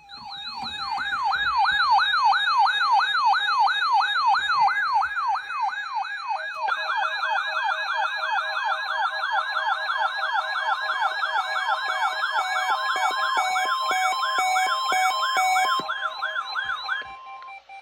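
Several NOAA weather alert radio receivers sounding their alarms, set off by the weekly test's warning alarm tone. It is an electronic siren rising and falling about two and a half times a second. About six seconds in, a second, faster warble joins, and later steady on-off beeps come in. All of it cuts off about a second before the end.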